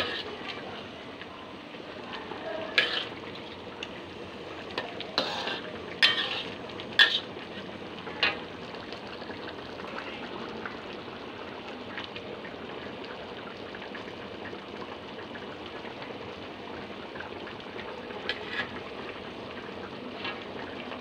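Thick curry simmering and bubbling in a wok, with a metal spatula knocking and scraping against the pan several times in the first eight seconds or so and again near the end.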